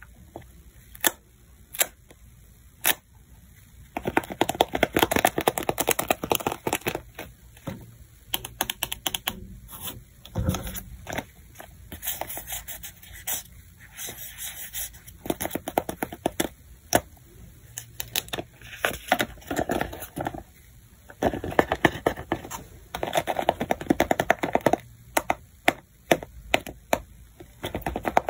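Handmade paper craft pieces being handled close to the microphone: stiff paper crinkling and rustling in several spells, with sharp clicks and taps of paper between them. Scattered single clicks in the first few seconds give way to denser crinkling.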